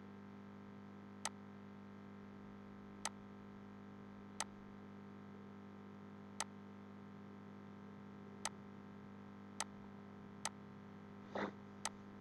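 Computer mouse clicks, about eight single clicks one to two seconds apart, over a faint steady electrical hum.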